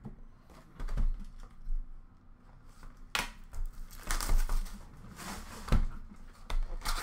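Irregular clicks, taps and knocks of trading-card boxes and card stacks being handled and set down on a glass counter, the loudest about one, four and six seconds in.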